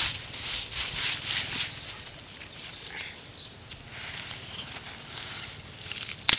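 Dry leaf litter and twigs rustling and scraping as a hand sweeps across the ground, in uneven strokes, with a sharp crack near the end.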